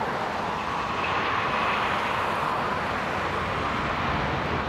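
Boeing 737 MAX's CFM LEAP-1B jet engines running steadily as the airliner rolls along the runway at speed: an even roar of engine and air noise.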